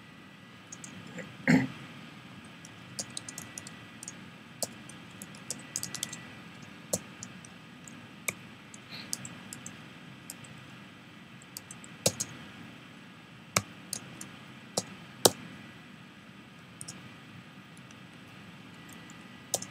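Computer keyboard keystrokes: scattered single key presses and short runs of typing, several of them sharp and loud. About a second and a half in there is a short, low throat noise.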